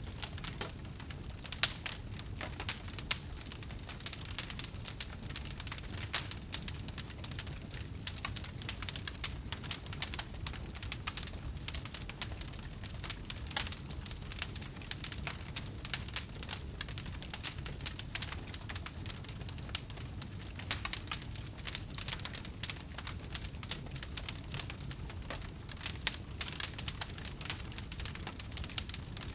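Wood fire crackling, with dense irregular pops and snaps over a low steady rumble of burning.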